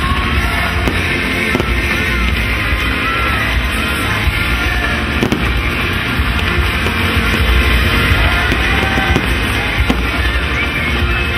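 Fireworks going off in a steady barrage of crackles and pops from fountains and aerial bursts, with music playing throughout.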